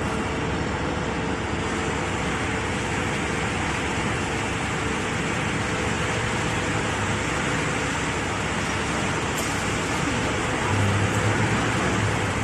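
Steady factory machinery noise with a constant hum, a low rumble swelling near the end.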